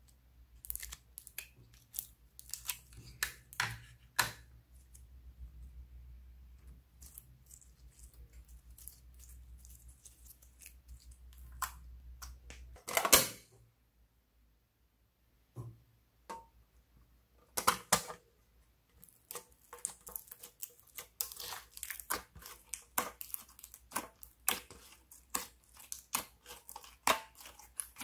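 Slime being squeezed and poked by hand, making irregular sticky clicks, pops and crackles. There is a louder burst about halfway through, a couple of seconds of quiet, and then a denser run of crackling.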